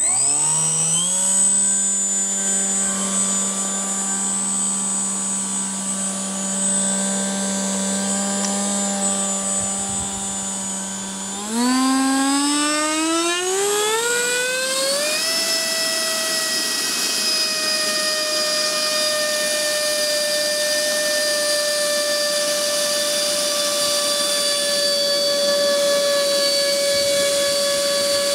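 Seawind-X model plane's electric ducted fan starting up and running at part throttle with a steady whine, then throttled up about twelve seconds in, its pitch rising over a few seconds to a much higher steady whine that drifts slightly lower toward the end.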